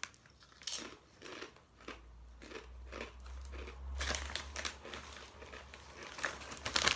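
Tortilla chips crunching as they are chewed, in short bursts, then a crisp packet crinkling as it is handled, loudest near the end.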